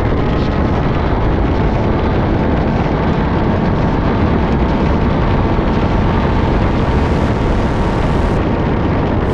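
A racing kart's two-stroke engine running at speed, heard from on board the kart, loud and steady throughout.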